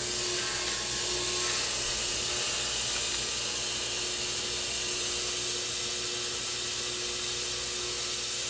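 Ultrasonic cleaner running with a carburetor soaking in its cleaning bath: a steady, even hiss with a faint steady hum underneath, the sound of the bath working loose the gummed fuel crud.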